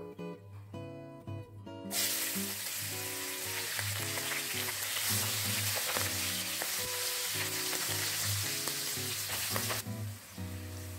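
Sliced garlic and bird's eye chilies sizzling in hot oil in a wok. The sizzle starts suddenly about two seconds in and eases near the end, with scattered clicks of a silicone spatula stirring them.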